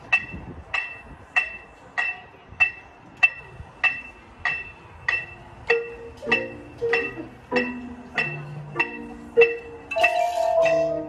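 An electronic metronome clicking steadily at about one and a half beats a second. About halfway through, marimbas and other mallet percussion come in, playing a melody in time with it. Near the end a louder held note with a hiss joins briefly.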